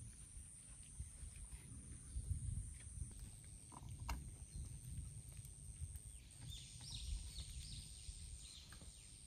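Stray cats eating, with scattered soft clicks and crunches over a low rumble. A run of high chirps comes about seven seconds in.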